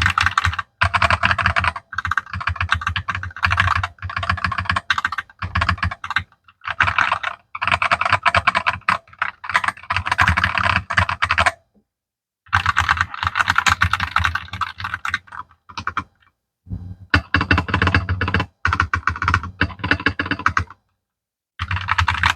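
Fast typing on a Loriik LR68 mechanical keyboard fitted with Gateron yellow linear and Gateron brown tactile switches, picked up with the mic right next to the keys. The clacking comes in runs of rapid keystrokes a few seconds long, broken by short pauses.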